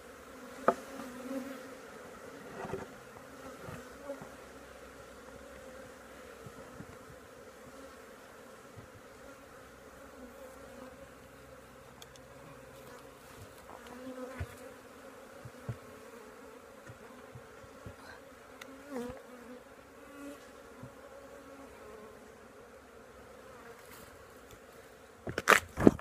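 Many honeybees buzzing around the camera in a steady, many-toned hum, with single bees passing close now and then. A few sharp knocks are heard, and a loud burst of handling noise comes near the end.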